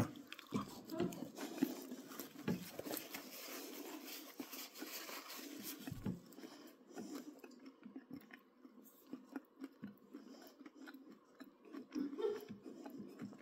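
A person chewing a bite of a soft pizza snack of crescent-roll dough, sauce, mozzarella and pepperoni: faint, irregular chewing with many small mouth clicks.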